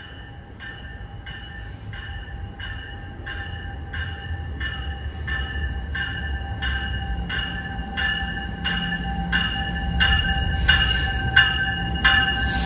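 NJ Transit Multilevel double-deck train arriving at a station platform, its warning bell ringing steadily at about two strokes a second and growing louder over the rising rumble of the approaching train. A short hiss of air comes near the end.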